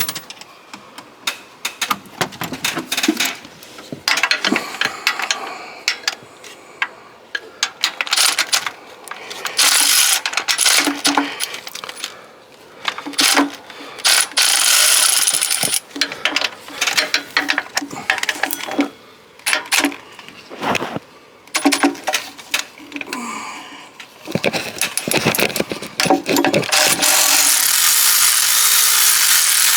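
Power tool with a magnetic socket run in short bursts as it backs out water pump bolts, mixed with metallic clinks of socket and bolts, then running continuously for the last few seconds.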